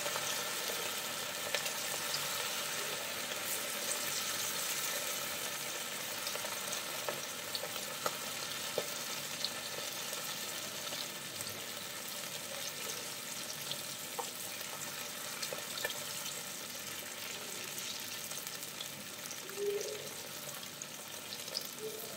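Marinated beef strips frying in hot oil: a steady sizzle with scattered pops and crackles, easing off slightly over time.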